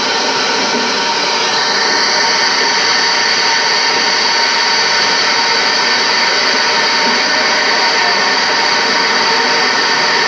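Small boat's motor running steadily, a continuous mechanical drone with a constant whine over it.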